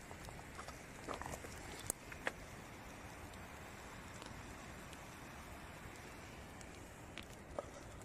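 A faint steady hiss with a few scattered small crackles and clicks from a bed of glowing wood embers.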